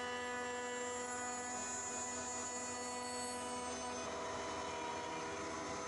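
Router in a router table, fitted with a round-over bit, running with a steady whine of several tones. About four seconds in, its pitch shifts slightly and some tones drop out.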